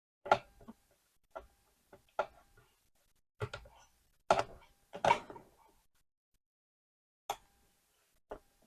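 Irregular sharp clicks and knocks of small hard laptop parts being handled and seated, about nine in all, the loudest near the start and around four to five seconds in.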